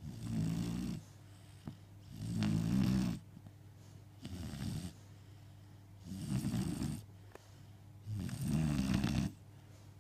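Snoring: five snores at an even pace about two seconds apart, each lasting about a second.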